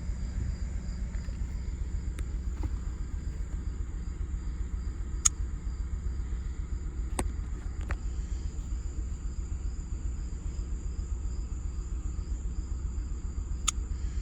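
Chevy S-10 pickup engine idling with a cylinder 2 misfire that new spark plugs have not cured, its steady low running pulsing unevenly. Insects chirp steadily, and a few faint clicks sound.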